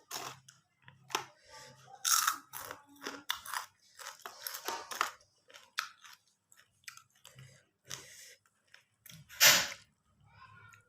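Close-up chewing and crunching of food in the mouth, an irregular run of crisp crunches and bites, the loudest about two seconds in and again near the end.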